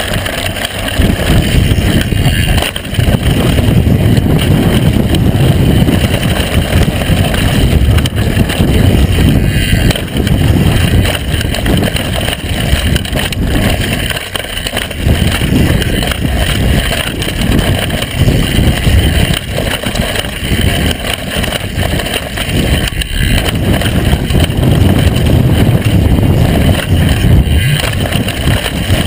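Wind rushing over the action camera's microphone as a downhill mountain bike runs fast down a dirt trail, mixed with knobby-tyre rumble and knocks over the rough ground. The noise rises and falls with speed, dipping briefly a few times.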